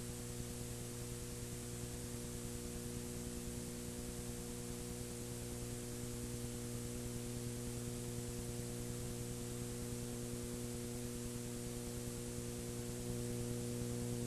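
Steady electrical mains hum with hiss, and no other sound.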